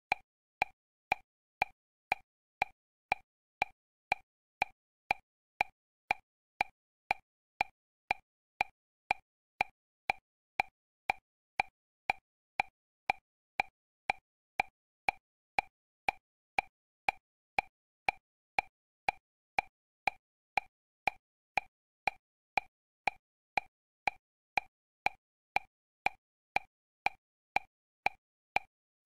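Short electronic beeps, each starting with a click, repeating evenly about twice a second like a metronome.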